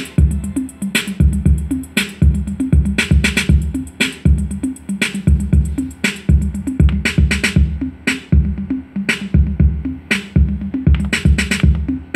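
Roland MC-303 groovebox playing an electronic drum-machine pattern: repeating kick drum and synth bass with sharp snare- and clap-like hits. The high ticking drops out about halfway through as a part is muted from the part buttons.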